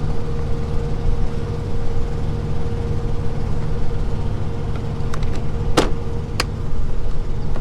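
Steady low rumble of an idling truck engine with a constant hum, and a few sharp plastic clicks and knocks in the last couple of seconds as the cab air filter and its cover are fitted back in place, the loudest about six seconds in.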